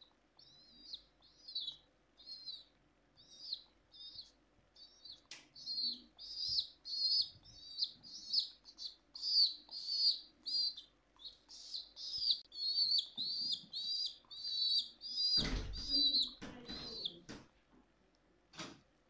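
Baby pigeon squab begging as it is hand-fed: a long run of short, high, wavering cheeps, sparse at first, then coming about two a second and louder, stopping near the end. A couple of brief thumps near the end as the squab flaps a wing.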